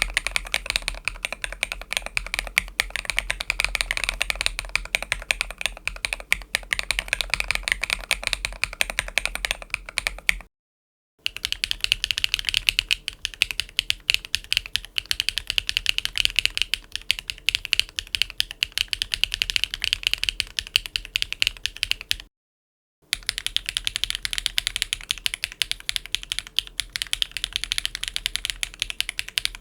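Fast typing on a mechanical keyboard fitted with HMX Cola linear switches: a steady stream of keystroke clacks. It comes in three separate takes, broken by brief silences about 10 and 22 seconds in, and the tone changes a little from one take to the next.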